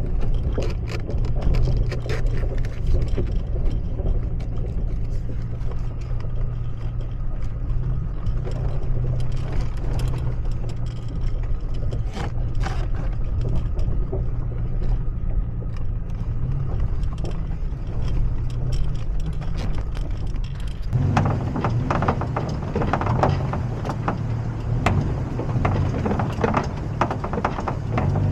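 Toyota Tacoma pickup crawling slowly over a rocky, leaf-covered trail: a steady low engine hum with frequent clicks and knocks from tyres on stones and the body and suspension working, heard from inside the cab. About 21 seconds in the sound turns to a louder, busier crunching of tyres over leaves and rock.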